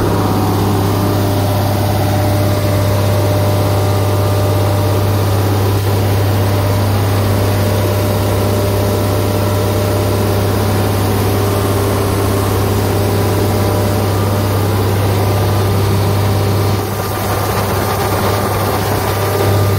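The engine of a Hwaseong DW-3060 shredder running steadily at constant speed, with a low, even drone.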